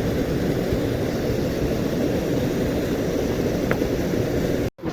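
Steady low rushing of a stream's flowing water close by, with a faint click and an abrupt cut-off near the end.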